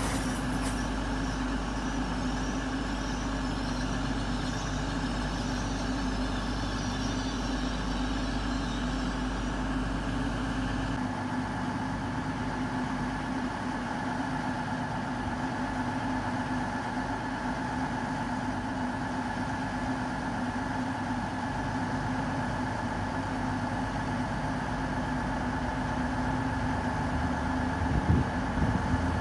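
Great Western Railway Class 802 bi-mode train's underfloor diesel engines idling with a steady drone. A high warbling squeal as the train draws to a stand dies away about ten seconds in.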